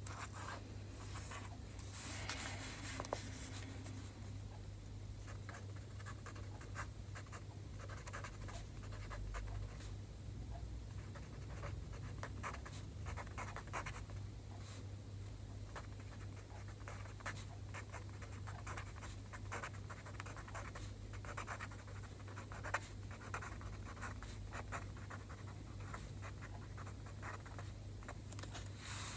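Pen writing Chinese characters on a sheet of paper, close up: short scratchy strokes and small taps in quick irregular runs, with brief pauses between them. A faint steady low hum lies underneath.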